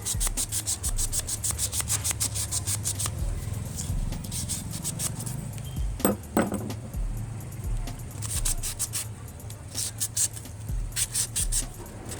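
Rapid back-and-forth scrubbing strokes on a car AC compressor part being cleaned of rust by hand, about four to five strokes a second. The strokes thin out around the middle and resume in short runs near the end.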